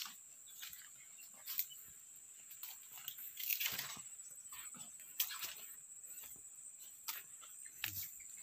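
Footsteps in rubber flip-flops crunching over dry twigs and leaves, with irregular sharp crackles, over a steady high buzz of insects.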